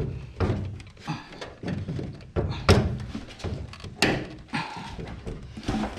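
A truck's light assembly being wiggled and pulled loose from its mounting: a run of irregular knocks and clunks, the loudest about two and a half and four seconds in.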